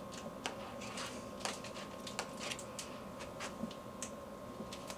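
Faint, irregular light clicks and scrapes of an applicator stick spreading quick-setting epoxy over the sanded keel repair on an ABS Royalex canoe hull, with a faint steady hum underneath.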